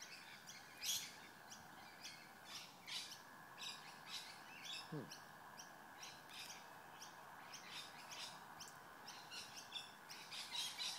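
Small birds chirping in short, repeated high calls, over a steady faint background hum.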